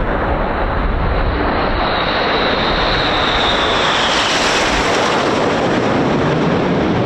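BAE Hawk T1 jets with Rolls-Royce Turbomeca Adour turbofans passing by, a loud jet noise whose high whine falls in pitch about four seconds in as they pass. Wind buffets the microphone with a gusty rumble for the first few seconds.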